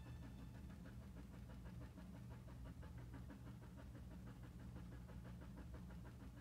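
Near silence, with a faint steady low hum and a faint rapid flutter.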